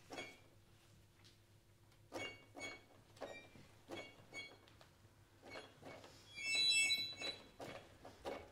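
Contemporary concert music: a series of sharp taps or clicks, roughly two a second, with a faint low held tone near the start. About six and a half seconds in comes a louder high squealing tone lasting about a second.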